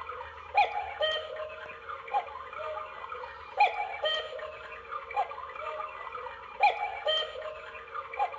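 Cuckoo clock calling: a two-note cuckoo call repeats about every three seconds, each with clicks from the mechanism.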